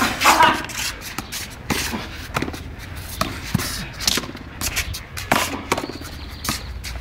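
Frontón handball rally: a small ball struck by bare hands and smacking off the concrete wall and floor, making irregular sharp knocks every half second or so.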